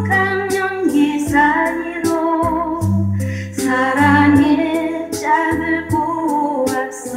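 A song with a woman singing over an accompaniment of held bass notes, played back from a cassette on an Inkel DD-6200 double cassette deck.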